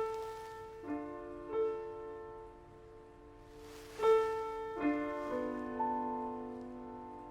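Slow, sparse piano playing: a few chords and single notes struck a second or so apart and left to ring and fade. A brief rustling noise comes in with the loud chord about four seconds in.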